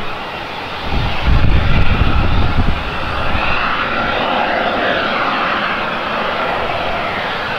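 Airbus A380's jet engines running, a steady rushing noise that becomes the main sound from about three seconds in; a low rumble comes and goes in the first three seconds.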